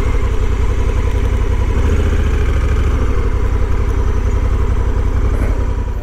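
Honda Africa Twin 1100's 1084 cc parallel-twin engine running steadily at low revs as the motorcycle idles and creeps at parking-lot speed.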